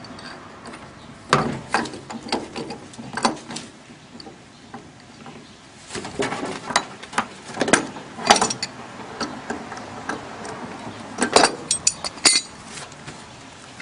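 Metal clicks and clanks of hand tools working loose the cast-aluminum gas control valve from a hot water heater, in scattered knocks with two bursts of rapid clicking, the first about midway and the second near the end.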